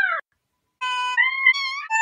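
Domestic cats meowing, the meows cut together one after another to carry a song's tune. One meow ends just after the start, then after a short pause come about four short meows in quick succession, the first held on one flat pitch.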